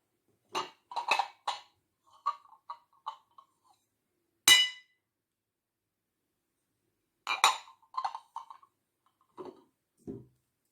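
Kitchenware clinking and knocking: a series of short clinks, one louder ringing clink about halfway through, another cluster of clinks a few seconds later, and two duller knocks near the end.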